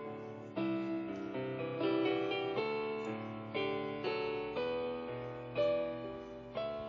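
Slow, gentle solo piano music, a new chord struck about once a second and left to fade.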